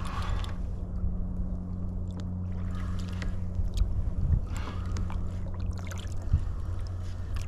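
Water sloshing and splashing against a fishing kayak's hull, with a few sharp clicks, over a steady low hum.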